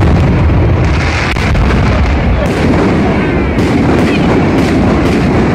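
Aerial firework shells bursting in a rapid barrage: a continuous rumble of booms, with sharper separate bangs about once a second.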